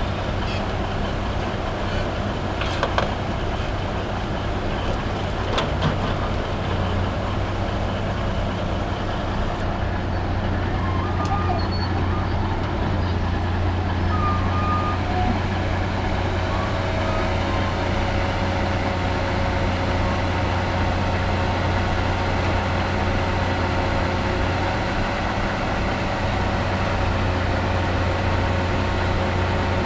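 Heavy diesel engine running steadily as a Cat log loader swings and sets a large log onto a logging truck's trailer, with a few sharp knocks in the first six seconds.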